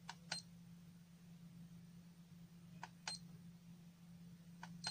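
Faint short clicks in pairs, three times, over a low steady hum.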